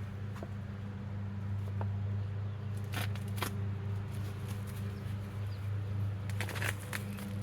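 Packaging being handled while a sharpening stone is unboxed: a few short rustles and light scrapes, twice about three seconds in and in a quick cluster near the end, over a steady low hum.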